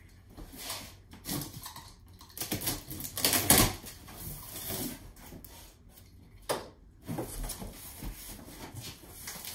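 Large cardboard box being opened by hand: flaps pulled up and folded back, with irregular rustling, scraping and knocking of cardboard, loudest about three and a half seconds in and with one sharp knock about six and a half seconds in.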